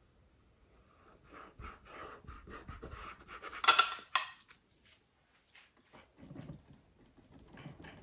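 Paintbrush scrubbing on canvas in quick short strokes to blend acrylic paint, with a louder scrape about four seconds in. Softer rustles follow near the end.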